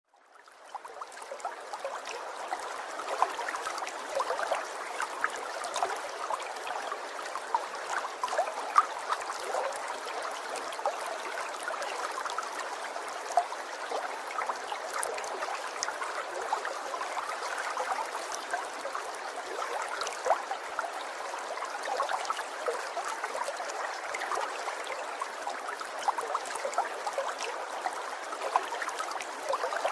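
Water trickling and gurgling, a dense steady patter of small drips and bubbles that fades in over the first second or so.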